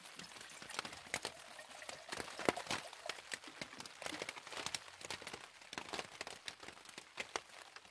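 Raindrops hitting a clear plastic tarp overhead: a dense, irregular run of sharp taps.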